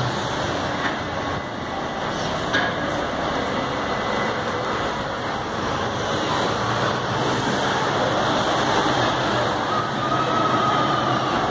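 Steady city-street traffic noise, with a departing bus's engine hum dropping away at the start.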